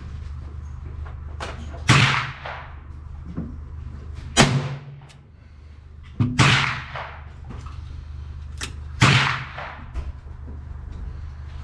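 Four .22 LR shots from a Taurus Model 66 long-barrelled revolver, fired about two to three seconds apart, each with a short trailing echo. There are lighter clicks between the shots.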